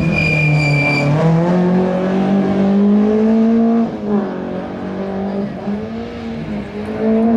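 Rally car engine revving hard as it accelerates, with a high tyre squeal in the first second. The revs fall away about four seconds in, then climb again near the end.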